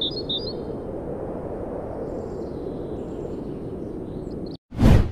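A few bird chirps at the start over a steady low ambient rumble, which cuts off abruptly near the end and gives way to a loud, brief whoosh sound effect.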